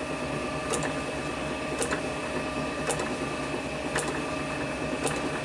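Steady machine hum with a faint, regular tick about once a second.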